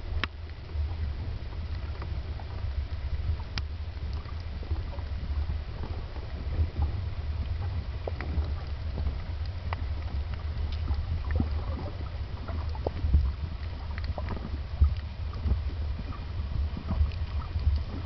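Underwater ambience picked up by a camera underwater: a steady low rumble with scattered faint clicks and crackles.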